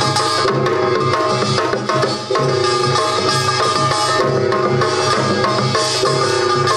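Korean traditional percussion (samul nori / pungmul) played live: drum strokes over the sustained ringing of struck gongs, in a dense, continuous rhythm.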